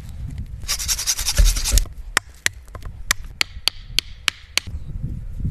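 A short scraping rustle through dry leaves with two heavy thuds, then a run of about eight sharp wooden clicks or knocks, roughly three a second, as wood is handled.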